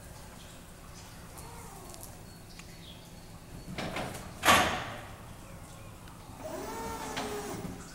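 Forklift loading work at a loading dock: a steady low hum, one loud sharp bang with a short ringing tail about halfway through, and a little later a whine that rises and falls in pitch for over a second.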